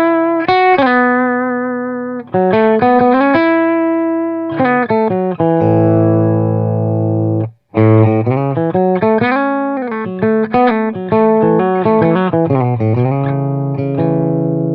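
Electric guitar played through an Oldfield 6715 all-tube 15-watt amp with two EL84 power tubes and an EF86 preamp tube. It plays quick single-note phrases with bends and slides, and a ringing chord that is cut off sharply about halfway through before the phrases resume.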